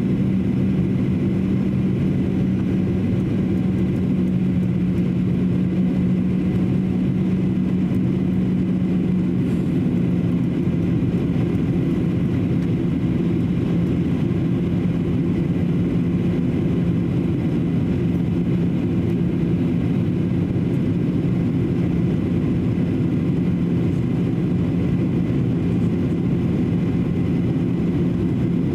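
Steady cabin noise in a Boeing 737-800 on its descent: the drone of the CFM56-7B turbofan engines with a steady low hum under the rush of air along the fuselage.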